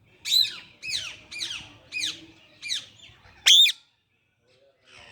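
Parrot squawking loudly: six harsh calls about half a second apart, each sweeping down in pitch, the last one the loudest.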